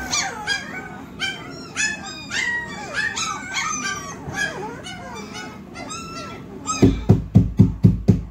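Young puppies yelping and whining together, short high calls that rise and fall, several a second. About seven seconds in, a fast run of loud knocks starts, about six a second, louder than the puppies.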